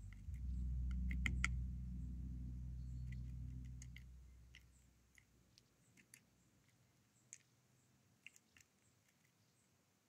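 A great tit pecking and hammering at sunflower seeds in a wooden feeder tray, making scattered sharp taps and clicks, with a cluster of them about a second in. A low steady hum is loudest at first and fades out about four to five seconds in.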